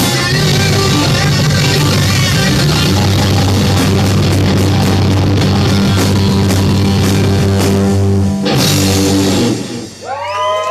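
Loud hard-rock music with electric guitar and drum kit, which breaks off about eight and a half seconds in. A voice starts just before the end.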